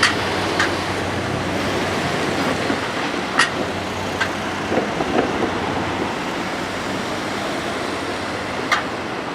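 KiHa 11 diesel railcar train running past on the line: a steady rumble whose low engine hum fades in the first couple of seconds, with a few sharp, irregular clicks from the wheels and track.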